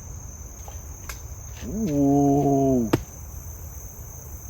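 Insects chirring in a steady high tone throughout, with a man's drawn-out "ooh" about two seconds in and a sharp click just after it.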